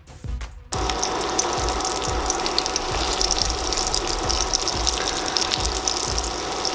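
Battered chicken-fried steaks sizzling and crackling steadily as they pan-fry in hot oil, cutting in abruptly under a second in.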